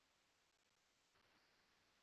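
Near silence: faint background hiss of a video-call audio feed.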